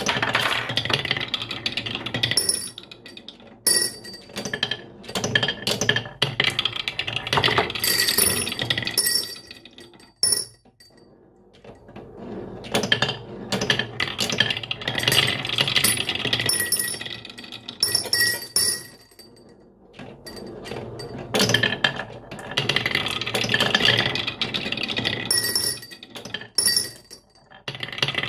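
Marbles rolling and clattering down marble run tracks, a dense run of clicks and rattles that comes in waves with two short lulls.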